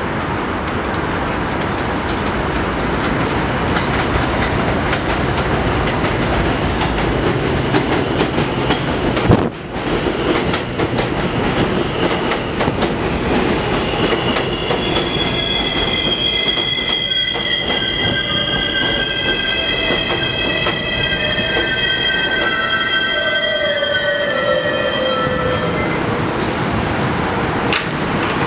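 R160A-1 subway train running into the station: a steady rumble of wheels on rail. From about halfway, several high squealing tones sit over the rumble as the train brakes, some stepping down in pitch before it comes to a stop near the end.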